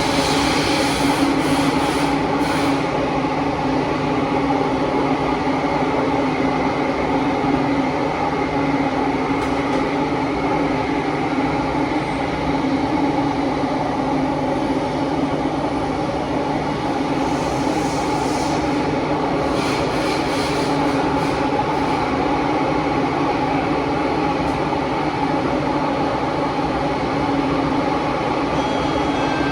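Inside a Kawasaki–CRRC Qingdao Sifang T251 metro car running underground: a steady rumble of wheels and running gear with loud wind noise, broken by a few brief hissing rushes.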